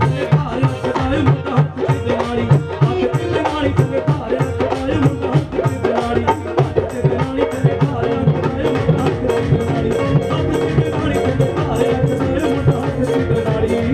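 Instrumental break of a live Punjabi folk-pop song: a fast, loud drum beat under a held keyboard melody.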